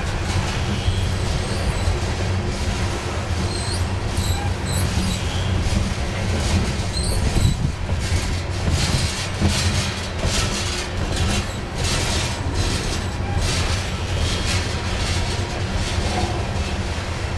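Coal cars of a Union Pacific freight train rolling past at close range: a steady rumble and clatter of steel wheels on the rails. Brief high wheel squeals come about four seconds in and again about seven seconds in.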